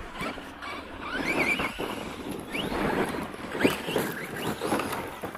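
Brushless electric motors of RC stunt trucks whining up in pitch several times as the throttle is punched, over the noise of tyres on loose gravel and dirt.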